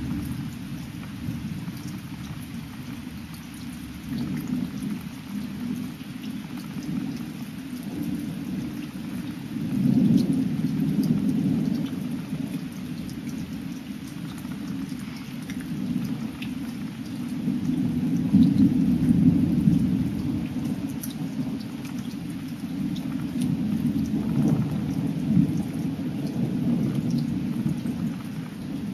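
Thunder rumbling in long rolls, swelling loudest about ten seconds in and again around eighteen to twenty seconds, with steady rain falling throughout.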